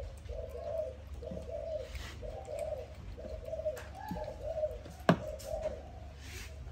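Doves cooing over and over in short repeated phrases, with one sharp knock about five seconds in.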